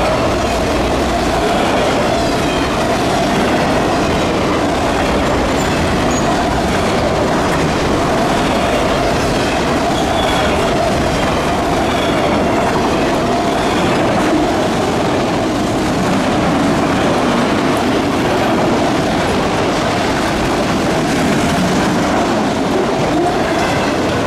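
Freight train of autorack cars rolling past at speed: the steady, loud rumble and clatter of steel wheels on the rails, with a steady tone running through it.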